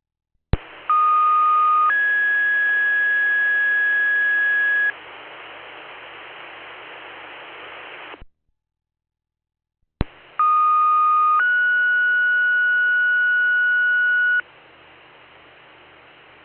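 Fire dispatch two-tone paging alert heard over a scanner radio: a steady tone held about a second steps up to a higher tone held about three seconds, then radio hiss that cuts off suddenly. The sequence comes again about ten seconds in with a different second tone, paging another station.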